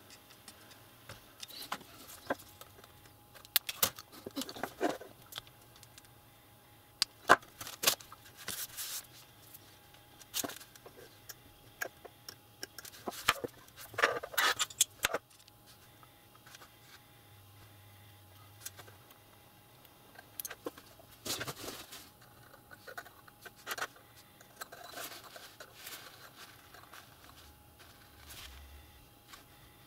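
Small hand tools clicking, tapping and scraping on a piece of copper stripboard on a wooden desk, as the board is cut down and its copper strips are split apart. The clicks come at irregular intervals, in short bunches, with a few brief scrapes among them.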